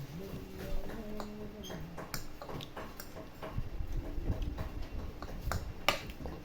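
Eating sounds at a meal: scattered, irregular clicks and smacks of chewing and utensils, the sharpest a little before the end, with a low hum in the first two seconds.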